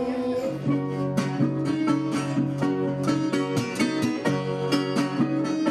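Blues band playing live, with a guitar strumming a steady rhythm that kicks in about half a second in.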